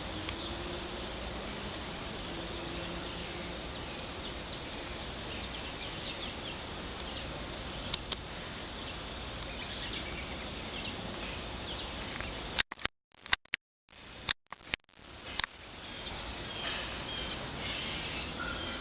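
Steady outdoor background hiss with faint, short high chirps scattered through it. A little past the middle the sound cuts out in several abrupt dropouts with sharp clicks, then the hiss returns.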